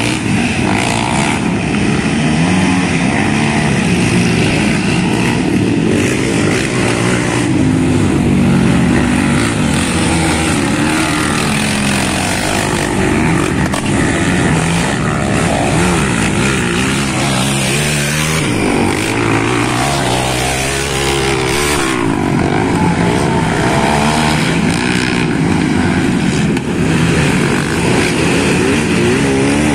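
ATV (quad) engines racing on a dirt track, running continuously with their pitch rising and falling again and again as they accelerate and back off.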